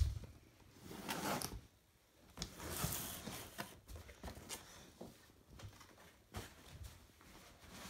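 A knock, then faint scraping, rustling and light knocks as a cardboard toy box is pulled out from under a bed and handled.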